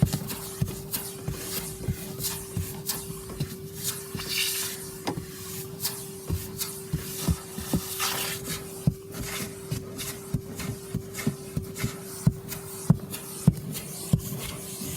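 Vacuum cleaner running with a steady hum, while its brush nozzle knocks and clicks irregularly against the car's interior and debris rattles up the hose.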